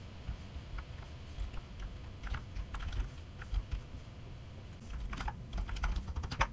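Typing on a computer keyboard: irregular single keystrokes, then a quicker run of keys near the end.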